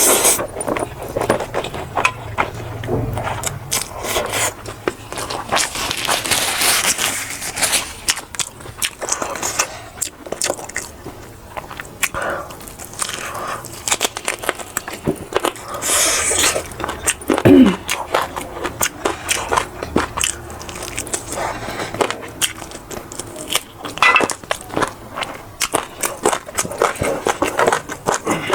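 Close-up eating sounds: a person biting and chewing food, with many small crunching and crackling clicks throughout.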